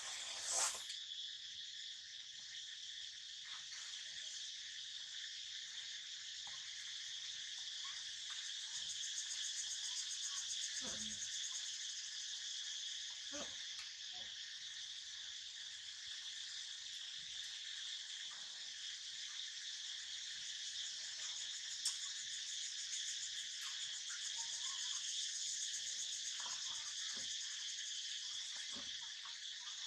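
Steady, high-pitched insect chorus, with a few faint clicks and knocks here and there.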